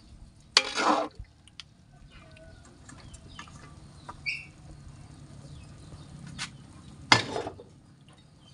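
Metal spatula scraping and stirring pork and long beans in a steel wok: two loud scrapes, about a second in and near the end, with a few light clinks between.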